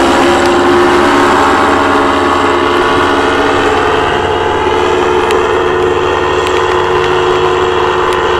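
Paramotor engine and propeller running steadily at high power as the powered paraglider flies past and climbs away, its pitch held level and the sound slowly growing fainter.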